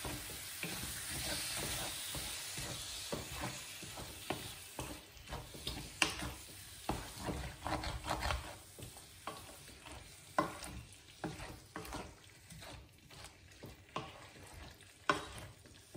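Wooden spoon stirring lamb pieces in a thick tomato-and-spice masala in a frying pan, with irregular scrapes and knocks of the spoon against the pan. The meat sizzles gently, the sizzle fading over the first few seconds as the tomato passata is mixed in.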